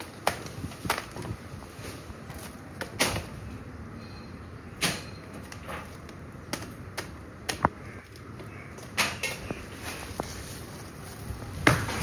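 Sharp, irregular knocks and clicks, a dozen or so at uneven gaps, over a steady low rushing noise; the loudest come in a cluster near the end.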